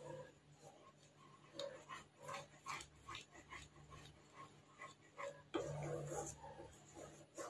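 Wooden spatula scraping and stirring a thickening milk and custard mixture in a pan: faint repeated scrapes and taps with a few soft bubbling plops, and a longer, louder scrape about six seconds in.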